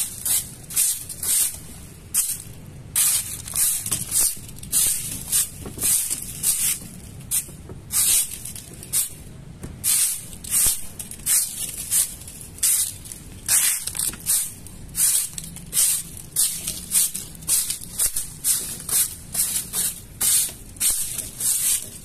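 Hand saw cutting through wood, a rasping stroke about two to three times a second, kept up at a steady pace.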